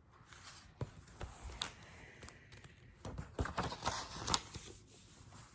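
Faint paper rustling and light taps from a picture book being handled and a page turned, with a denser cluster of rustles about three to four seconds in.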